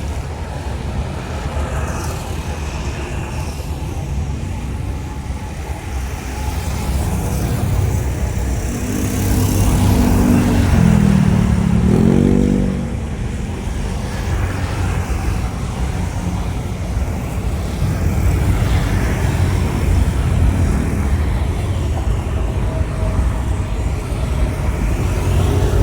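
Steady low engine rumble. A nearby road vehicle's engine note swells and rises in pitch about ten seconds in, then falls away as it passes.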